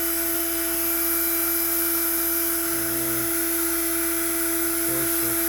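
Makita router on a Onefinity CNC spinning at about 18,000 rpm with a steady, even whine.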